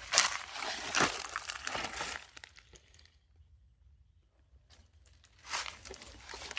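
Dry leaves and vegetation rustling and crunching in irregular bursts, with a quiet gap of about two seconds in the middle before the rustling starts again.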